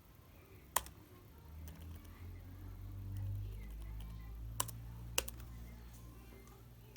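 Laptop being handled: three sharp clicks, about a second in and then twice close together near the end, over a low hum that swells about three seconds in.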